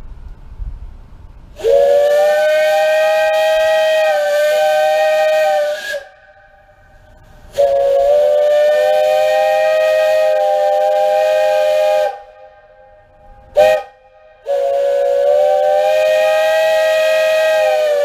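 The J&L 58 steam locomotive's whistle blown on 100 pounds of steam pressure from its rebuilt boiler, the first time it has sounded since the mid-1950s. Three long blasts of several steady pitches at once, each about four seconds, with a short toot just before the third.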